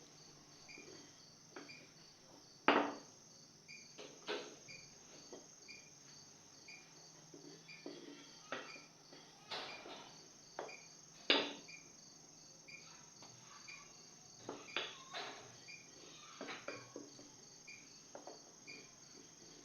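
Crickets chirping steadily, with irregular wooden knocks and clacks from a rolling pin on a board as chapati dough is rolled out.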